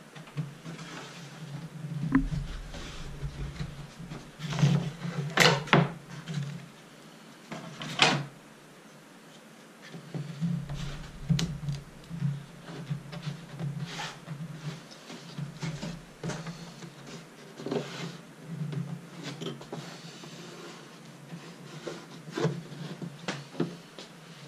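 Irregular clicks, knocks and rubbing of wood and clamps as a glued cedar strip is clamped and pressed into place on a canoe hull, with the sharpest knocks around five to eight seconds in.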